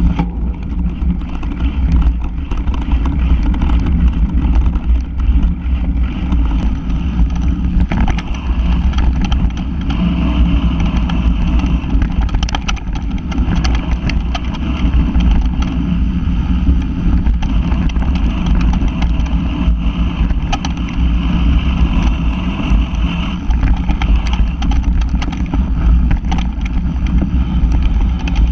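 Ride noise from a vehicle-mounted camera on a trail over dirt and fallen leaves: a loud, steady low rumble with wind on the microphone and scattered knocks from bumps in the ground.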